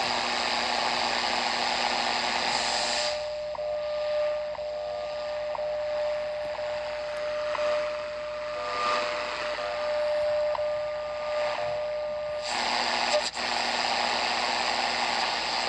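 Philips D1835 shortwave radio tuned between stations: a steady hiss of static that gives way, about three seconds in, to a quieter stretch with a steady whistle and faint ticks, then the hiss comes back near the end, followed by a sharp click.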